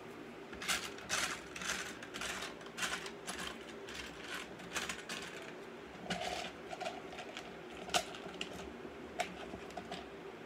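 Loose plastic LEGO pieces rattling and clicking in quick irregular bursts as someone rummages through them, hunting for a missing part; the bursts thin out to scattered clicks in the second half, over a faint steady hum.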